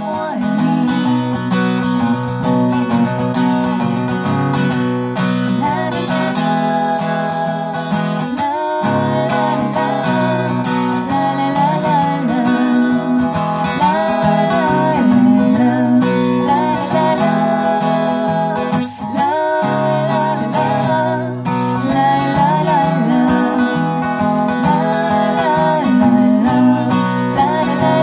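Live acoustic guitar strumming with a woman singing the melody, a song played through stage PA speakers.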